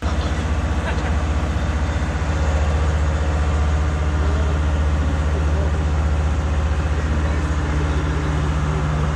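Diesel engine of an asphalt paver running steadily at constant speed, loud and even, heard up close.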